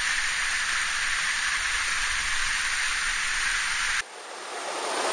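Rushing water of a mountain stream running high after rain, a steady hiss-like noise. About four seconds in it cuts off abruptly and comes back fuller and lower, fading up.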